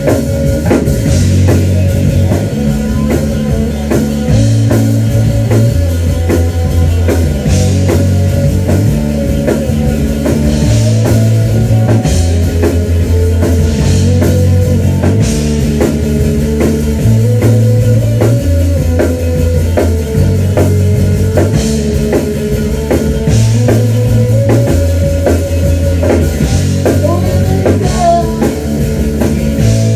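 Rock band playing live in a rehearsal room: drum kit and electric guitars playing a song through a repeating low riff, with no singing.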